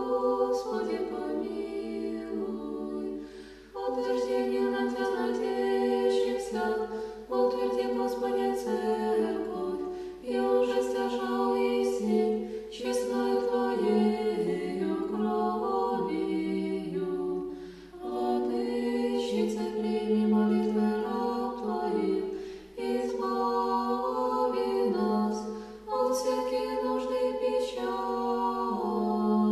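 Orthodox church choir singing a cappella in several-part harmony, in sustained phrases broken by short pauses for breath.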